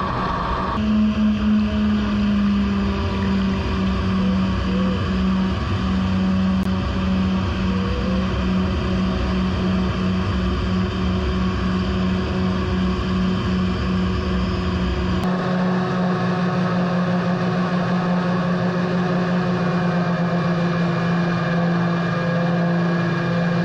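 The airboat's two 3D-printed ducted fans, each driven by a 2200 kV brushless motor, running at speed with a steady hum over the rush of water past the hull. The sound shifts abruptly about a second in and again about fifteen seconds in, the low rumble dropping away at the second change.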